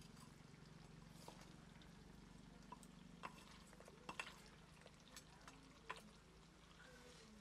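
Faint, irregular clinks and scrapes of a metal spoon against a small clay pot as chicken curry is stirred, over a low steady hum.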